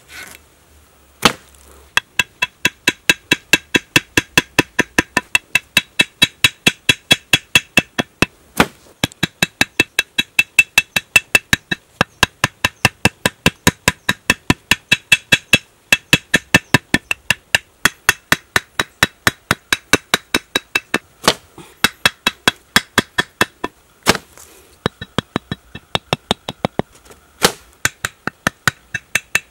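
Rapid, evenly spaced hollow knocks, about four a second, each with a brief ringing tone, starting about two seconds in, with a few louder single knocks among them.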